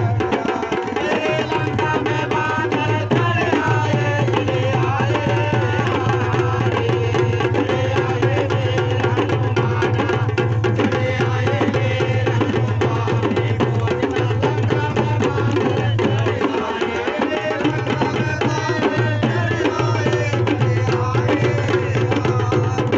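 Holi phagua folk music: rope-tensioned barrel drums (dholak) and small drums beaten with sticks keep up a fast, continuous rhythm, with men's voices singing along.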